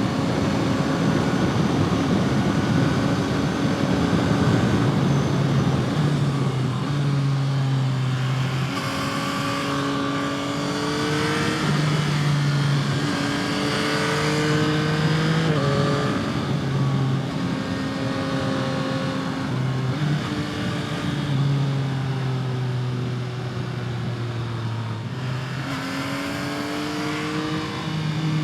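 Yamaha MT-09's three-cylinder engine and exhaust under way, the revs climbing and dropping again and again as the bike accelerates and eases off, with wind noise heaviest in the first few seconds.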